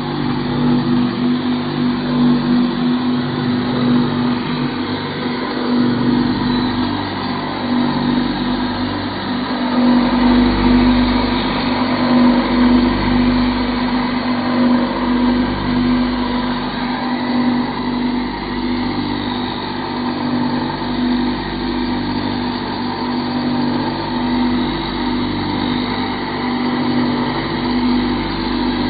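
Knife sharpening machine running steadily, its motor giving a constant hum with a few swells in level.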